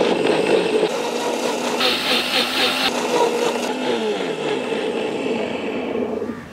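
Electric mixer grinder running with its jar full of dragon fruit, sugar and milk, blending it into a milkshake. The motor starts abruptly, runs steadily, and cuts off near the end.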